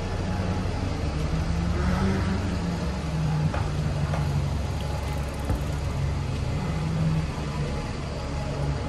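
Double-decker bus's diesel engine running steadily at a stop, a low engine note with street traffic noise around it.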